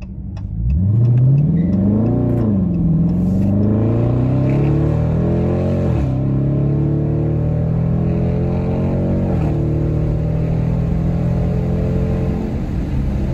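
2020 Dodge Challenger R/T's 5.7-litre HEMI V8 with its mid-muffler deleted, accelerating hard as heard from inside the cabin: the revs climb, drop back at upshifts about two, six and nine seconds in, climb again each time, and ease off near the end.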